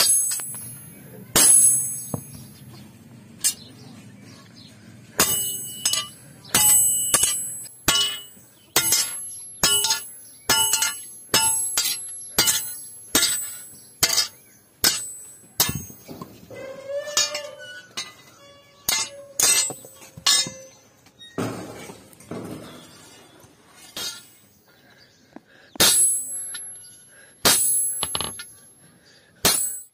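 Hand hammer blows on a rusty iron bar lying on a steel anvil block, mostly struck through a cold chisel held on the bar. The sharp metallic strikes come roughly once a second with brief pauses, each ringing high.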